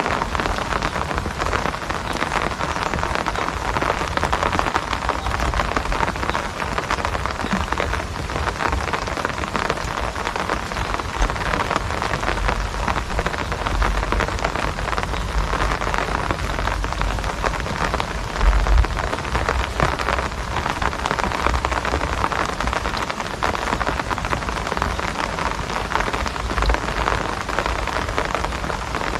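Steady rain falling, a dense, even patter, with brief low rumbles now and then, the loudest about eighteen seconds in.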